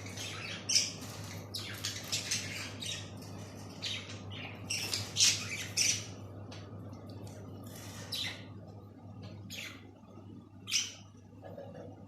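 Budgerigars chattering and squawking, a quick run of short harsh calls with a few louder squawks, thinning out towards the end.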